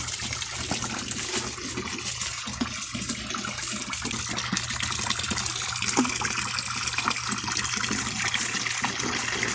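Water from a hose pouring steadily into a plastic tub of muddy water.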